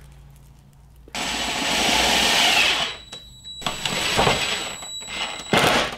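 DeWalt 20V MAX impact driver with a long bit extension driving half-inch lath screws through plastic tilt bins into chipboard. It runs in three goes: about two seconds, then nearly two seconds, then a short burst near the end.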